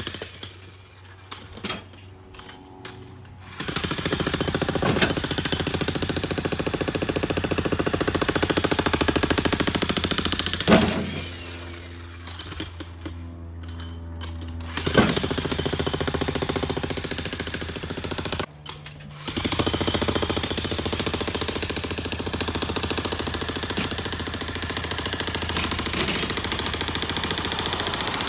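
Bosch Brute electric breaker hammer pounding concrete with a rapid, steady hammering, in three long runs separated by short pauses.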